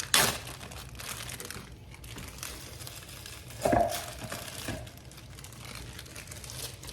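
Plastic bag of frozen banana pieces crinkling and rustling as it is opened and handled, with a hard knock that rings briefly a little under four seconds in.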